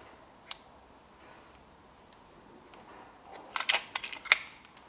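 Metallic clicks from the action of an FX Dreamline Classic PCP air rifle: one sharp click about half a second in, then a quick run of clicks and clacks near the end as the rifle is handled and the action worked.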